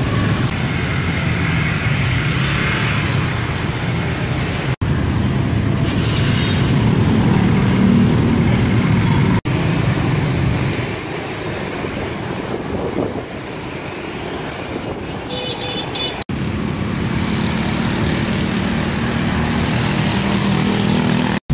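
City street traffic of mostly small motorbikes: a steady mix of engine and road noise. The sound drops out briefly three times, about five, nine and sixteen seconds in.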